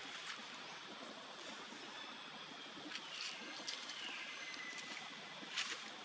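Steady outdoor background hiss among trees with a few faint clicks; a little after three seconds in, a thin high call falls in pitch and then holds for about a second, and a sharp click stands out near the end.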